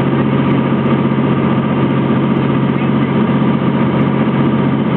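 Cessna T182T Turbo Skylane's turbocharged six-cylinder piston engine and propeller running, a loud, steady drone heard inside the cabin.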